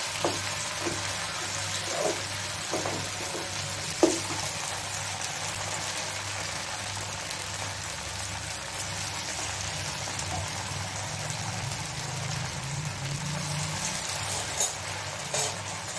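Poha and besan rolls deep-frying in hot oil on high flame: a steady sizzle, with a few light clicks of a wire skimmer against the pan, the sharpest about four seconds in.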